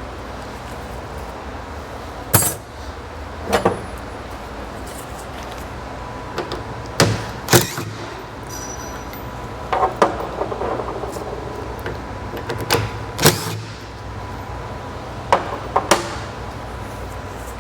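Scattered sharp metallic clanks and knocks from tools and metal parts being handled while a Humvee's body is taken apart. There are about eight separate hits, some ringing briefly, over a steady background hum.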